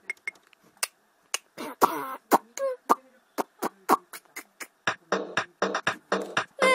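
Casio electronic keyboard sounding a run of short, sharp drum and percussion hits, irregularly spaced, several a second. Sustained keyboard notes come in right at the end.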